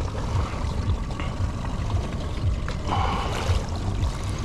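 Hooked California halibut splashing at the surface beside the boat as it is lifted from the water, strongest about three seconds in, over a steady low rumble.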